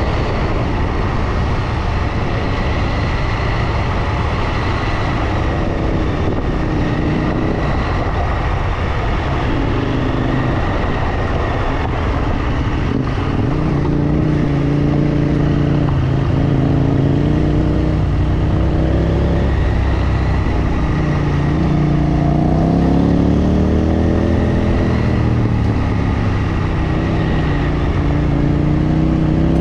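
Motorcycle engine running under way, its pitch rising and falling with the throttle, over a steady rushing noise.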